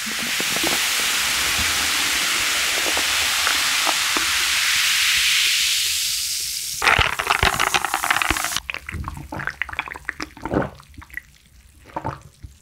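Sparkling water poured from a plastic bottle into a glass mug over ice: a loud, steady fizzing pour for about seven seconds, rising in pitch as the mug fills. Then comes a brief stir with clinks, and the fizz crackles away as the carbonation settles, with a sip near the end.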